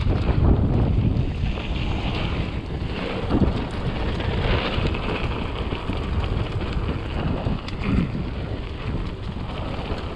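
Wind buffeting an action camera's microphone on a mountain bike riding downhill, with the hiss of tyres on a dirt trail and scattered knocks and rattles from the bike over rough ground.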